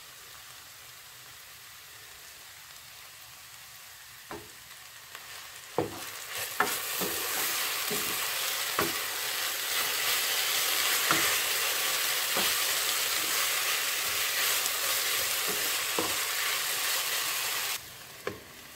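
Grated potatoes frying in a little oil in a non-stick pan, sizzling faintly at first and then louder from about six seconds in as they are stirred, with knocks and scrapes of the spatula against the pan. The sizzle drops suddenly near the end as a glass lid is put on.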